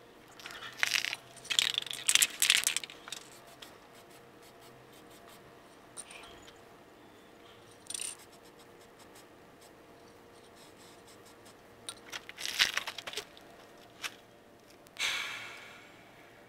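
Scattered clinks, knocks and scrapes of hand tools on metal truck parts during leaf spring work, coming in short clusters with quiet gaps between and a longer fading scrape near the end.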